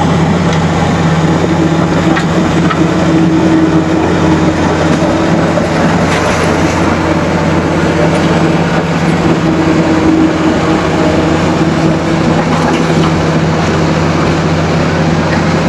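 Komatsu D85E bulldozer's diesel engine running at a steady pitch, under a dense, constant mechanical noise.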